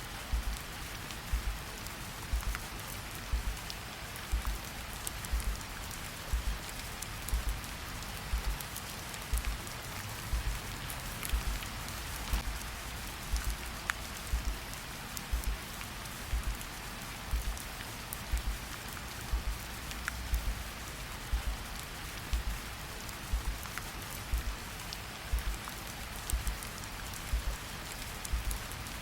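Steady rain falling, with a low heartbeat thumping evenly about once a second underneath it.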